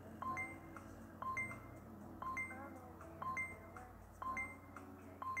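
Quiet background music with a steady pulse about once a second, a sharp high note on each beat and soft gliding notes between.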